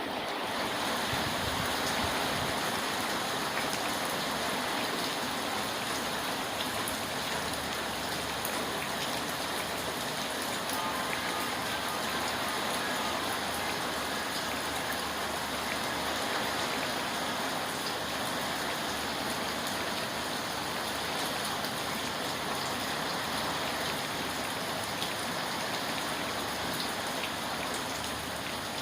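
Steady rain falling, a dense even hiss with scattered faint drop ticks.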